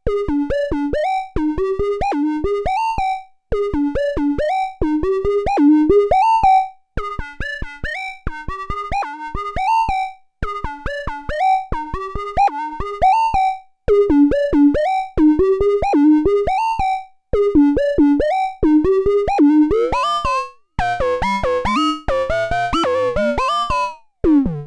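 Eowave Orage analog complex oscillator, frequency-modulated by a second oscillator's triangle wave, playing a repeating sequence of short synth notes in phrases a few seconds long. From about 20 seconds in the tone turns dense and clangorous as oscillator 2's frequency is changed.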